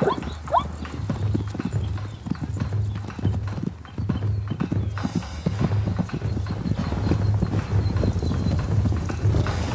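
Zebra hooves thudding on the ground, many irregular hoofbeats in quick succession, with a couple of short rising zebra squeals at the very start.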